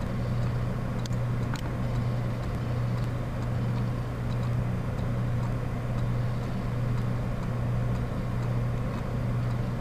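Steady low electrical hum with a constant background hiss on the recording line, with two faint clicks about a second in.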